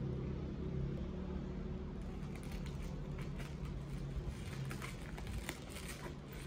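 Scissors snipping through plastic stretch wrap on a parcel, with irregular crinkles and crackles of the plastic starting about two seconds in, over a steady low hum.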